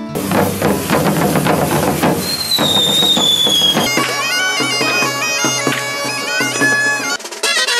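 Street folk music on bagpipes: for the first four seconds a dense, noisy stretch with a high sliding tone. Then a bagpipe's steady low drone sounds under a stepping pipe melody, with a small drum. The drone drops out near the end while the melody continues higher.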